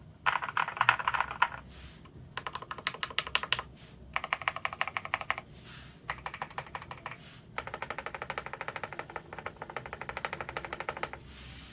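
Fast typing on a custom KBD67 Lite mechanical keyboard with lubed Epsilon linear switches, tape and PE-foam mods and PBT keycaps. The keystrokes come in five quick runs of a second or more each, with short pauses between them.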